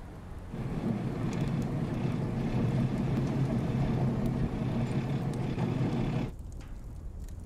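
A small boat under way at sea: a steady low rumble of engine, wind and water that starts about half a second in and cuts off abruptly about six seconds in.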